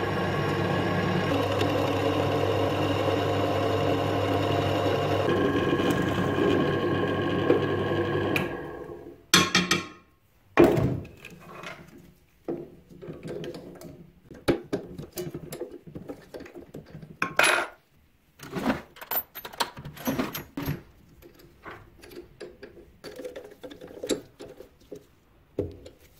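Bench drill press running steadily while drilling a metal part, then switched off and spinning down about eight seconds in. After that come irregular clicks, clinks and knocks as the drill bit is changed in the chuck.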